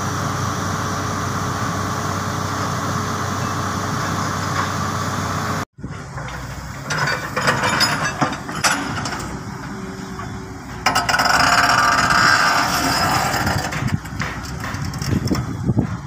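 Diesel engine of a crawler excavator running steadily. After a cut, an excavator works, loading soil into a dump truck: its engine rises and falls, gets louder for a couple of seconds past the middle, and is joined by knocks and clanks near the end.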